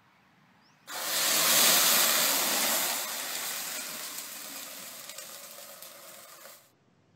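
A pan of burning cooking oil erupting into a fireball as water is poured into it: a sudden loud rush of flame that starts about a second in, is loudest at first, then fades over the next five seconds and cuts off abruptly. This is the steam explosion that throws the burning oil up and out, the reason an oil fire must never be put out with water.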